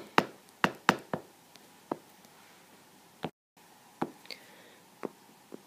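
Stylus tip tapping on a tablet's glass screen during handwriting and app use: about ten short sharp taps at irregular spacing. The sound cuts out completely for a moment just past halfway.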